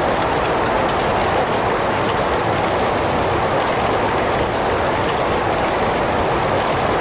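Heavy rain falling steadily, an even hiss of dense rainfall with no letup.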